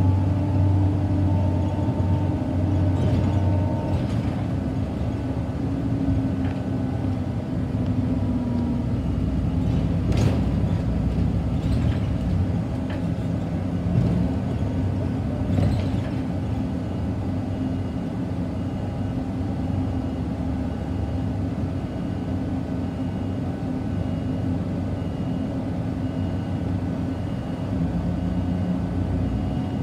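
Scania K94UB city bus heard from on board while driving: the engine runs with its note rising and falling as the bus speeds up and eases off, over steady road rumble. A few short knocks and rattles come from the bus body.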